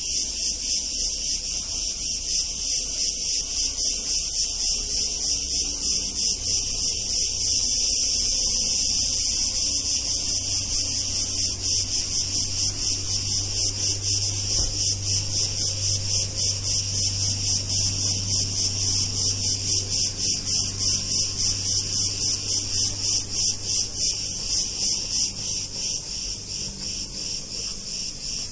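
Cicadas singing in chorus: a loud, high-pitched, rapidly pulsing buzz that eases off a little near the end.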